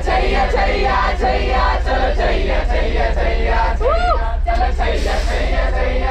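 A group of young people singing and chanting together in a train carriage, many voices at once over a steady low rumble. About four seconds in, one voice whoops up and back down.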